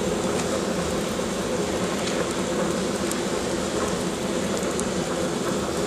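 Fire burning in the firebox of a Logika III solid-fuel boiler: a steady rushing noise with a low hum, and a few faint crackles now and then.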